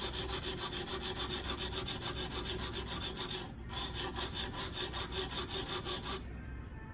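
A guided-system sharpening stone scraping over a knife blade's edge in quick, short strokes, several a second, with a brief break about halfway and stopping near the end. The stone is being pressed toward the back of the bevel to widen and reprofile the edge near the tip.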